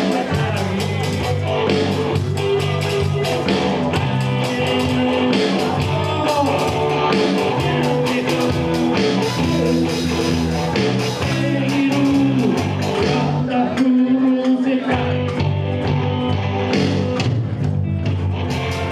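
Live band playing upbeat rock-and-roll music with singing, a steady beat and a bass line; the bass drops out briefly about 14 seconds in.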